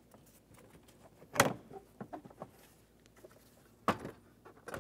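Plastic lower dash panel around the glove box of a 2004 Nissan Titan being pulled free of the dash: two sharp snaps, about a second and a half in and near four seconds, with smaller plastic clicks and knocks between.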